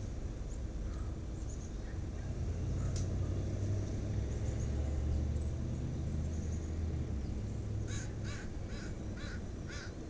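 A crow cawing five times in quick succession near the end, over a steady low rumble that swells for a few seconds in the middle.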